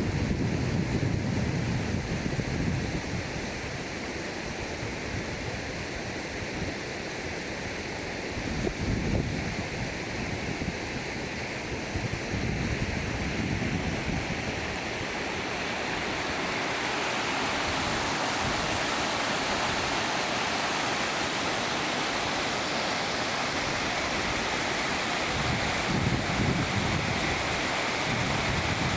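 Steady rush of water at a waterfall. Wind buffets the microphone in low gusts at the start, about nine seconds in, and near the end.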